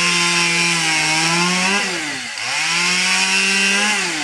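Petrol chainsaw's two-stroke engine held at high revs while cutting into a wooden carving. It drops off briefly about halfway through, revs up again, and falls away near the end.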